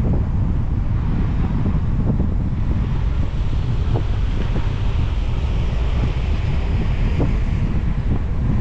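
Car driving on a wet road in the rain: a steady low rumble of road and wind noise. A higher tyre hiss swells through the middle and fades near the end, with a couple of light knocks.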